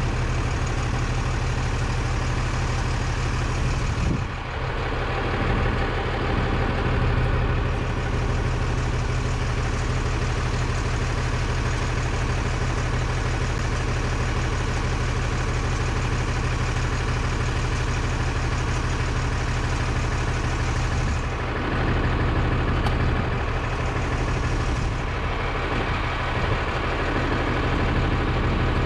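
Automated side-loader garbage truck's engine idling steadily with a deep hum, its pitch shifting briefly about four seconds in and again a few times past twenty seconds.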